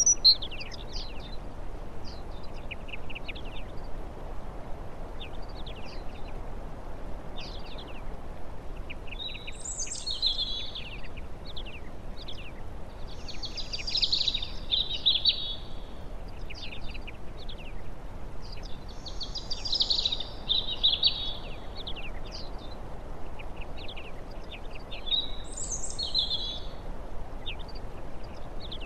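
Small songbirds calling: scattered short, high chirps, and a song phrase of a second or two repeated four times, about every five or six seconds, over a steady background hiss.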